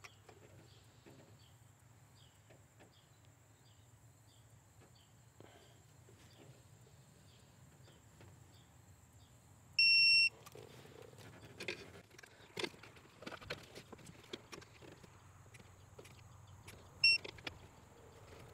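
Digital torque wrench on an intake manifold bolt, beeping as it reaches the set torque of 10 N·m: one steady half-second beep about ten seconds in and a short beep near the end. Faint ratchet clicks and light tool knocks come between.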